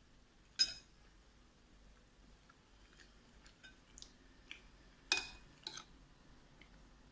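A metal utensil clinks sharply on a dish twice, about half a second in and again about five seconds in, each with a short ring; faint soft clicks from the creamy, sticky pasta come in between.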